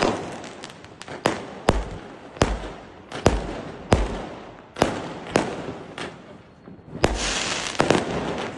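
Aerial fireworks bursting in the sky: a run of about a dozen sharp bangs, each half a second to a second apart, with crackling between them. A brighter crackling hiss comes near the end.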